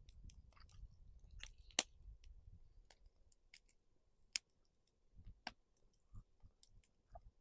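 Faint, scattered sharp clicks and pops, with a louder pop about two seconds in and another a little past four seconds, over a low rumble that fades after the first couple of seconds.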